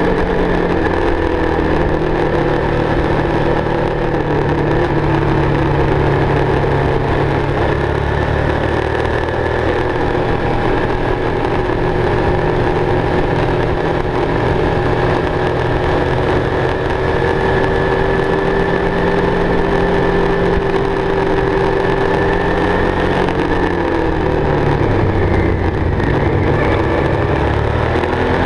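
Motorcycle engine running at steady road speed, heard from on the bike together with wind and road noise. The engine note rises and falls a little as the bike works through the curves, most noticeably a few seconds before the end.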